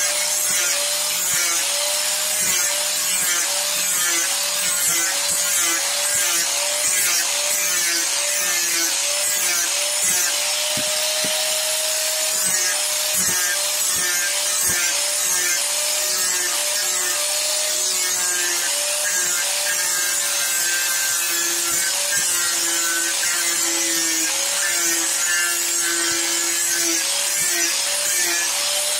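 Handheld electric angle grinder with an abrasive disc grinding and sanding a block of dark hardwood, running without a break. The motor's whine wavers slightly up and down as the disc is pressed into and eased off the wood, over a steady hiss of abrasion.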